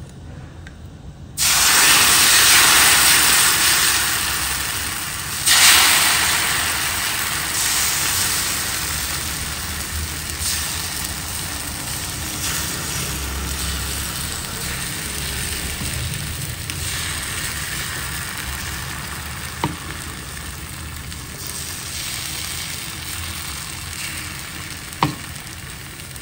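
Thin rice batter for neer dosa sizzling as it is poured onto a hot, freshly seasoned cast-iron dosa tawa. It starts suddenly, swells again about five seconds in as more batter goes on, then slowly dies down as the dosa sets, with two faint clicks near the end.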